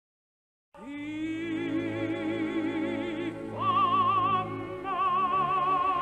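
A female opera singer singing with wide vibrato over instrumental accompaniment. The voice enters about a second in on a held note and leaps up to a higher sustained note about three and a half seconds in.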